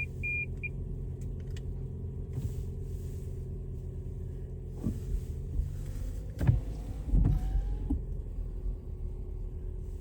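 Steady low rumble of a car heard from inside the cabin. An electronic warning chime beeps rapidly and stops about half a second in, and there are a couple of dull thumps about six and a half and seven seconds in.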